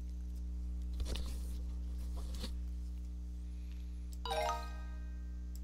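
Steady low electrical hum with a few faint clicks, then about four seconds in a short pitched chime from the exercise web page as the typed answer is checked and marked correct.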